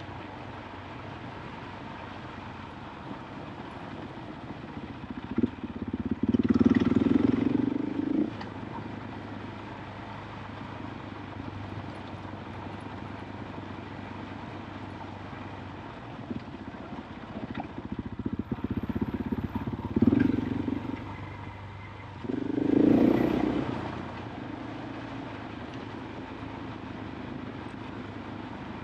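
KTM 500 EXC-F's single-cylinder four-stroke engine running steadily, getting much louder three times for a second or two as the throttle is opened.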